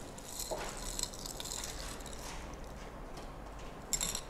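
Ice cubes clinking and rattling against a tall glass as iced coffee is stirred with a metal straw: light scattered clinks through the first half, then a quicker, louder flurry near the end.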